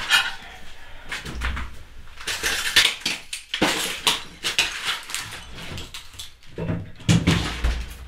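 Rummaging through kitchen cupboards: doors and objects knocking and clattering irregularly.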